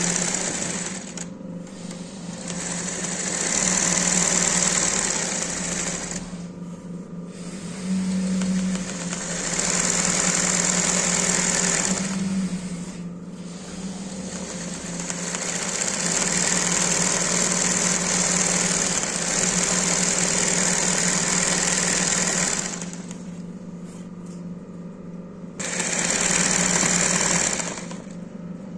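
Industrial embroidery sewing machine stitching free-hand embroidery through fabric held in a hoop, running in spells of a few seconds and stopping briefly between them about four times.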